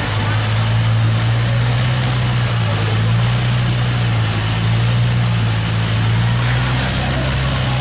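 Long-tail boat's engine running steadily at speed, a loud low drone, with water rushing and spraying along the hull.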